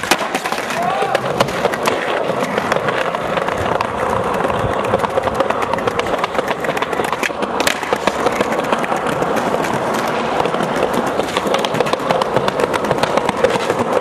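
Skateboards rolling and clacking throughout, many sharp board knocks over a steady rumble, with voices going on underneath.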